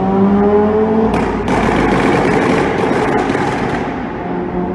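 VW Golf R's turbocharged four-cylinder revving up with a rising note through its aftermarket exhaust. After about a second it gives way to roughly three seconds of loud, rough exhaust noise with crackles and pops. The engine note returns near the end.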